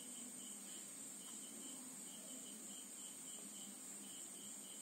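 Faint background chirping: runs of short, high chirps, about four or five a second, over a steady high hiss and a low hum.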